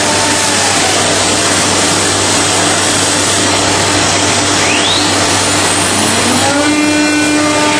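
Through-feed CNC door-making machine running: a loud, steady rush of machine noise, with faint whines that glide in pitch, one rising sharply about five seconds in.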